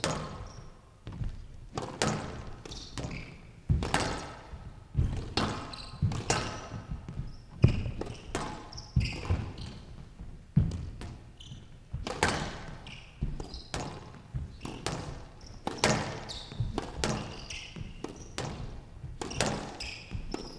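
Squash rally on a glass court: racket strikes and the ball smacking the front and side walls, a sharp knock about once a second, ringing briefly in the hall.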